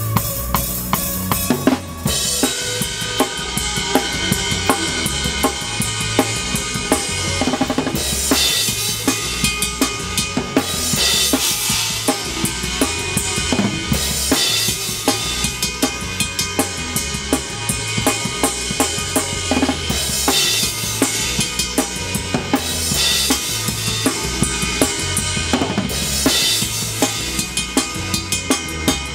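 A drum kit with Paiste cymbals being played: a steady groove of bass drum and snare under a constant wash of cymbals. Brighter cymbal crashes surge up every few seconds.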